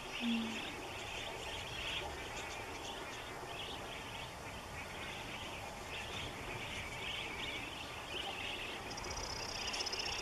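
A flock of wild budgerigars chirping and chattering continuously in flight. A higher, fast trill joins in near the end.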